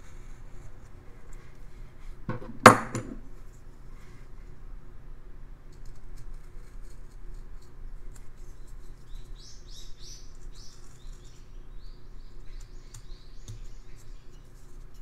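Hand carving in basswood: quiet cutting and handling of the wood, with one sharp metallic clack about three seconds in as a carving tool is set down on the wooden table. Later comes a quick run of short, high-pitched strokes.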